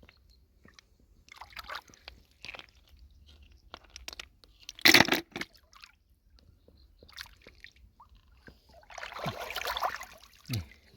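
Shallow water splashing and sloshing in short, irregular bursts, with crunching and squishing as hands work through lake water and mud picking snails and clams. The loudest splash comes about five seconds in, and a longer stretch of sloshing near the end.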